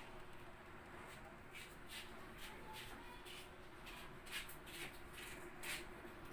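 Faint rustling scrapes, about a dozen short ones in a few seconds, over a faint steady hum.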